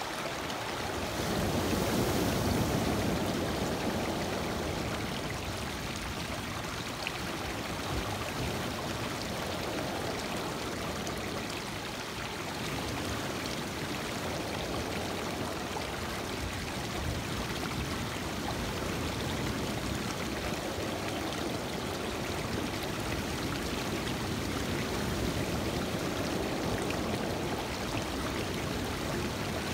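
Lake Michigan surf breaking on a rocky shore, with water rushing and washing over the cobbles in a steady wash. A louder surge comes about two seconds in, followed by gentle swells as the waves come in.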